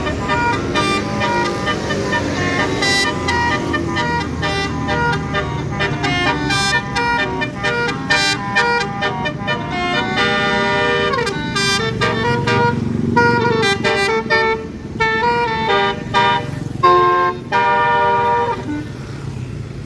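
A bus's Basuri 'telolet' multi-tone horn playing a melody, the notes changing in quick succession, with a falling swoop about ten seconds in and a few longer held notes near the end. A bus engine runs underneath.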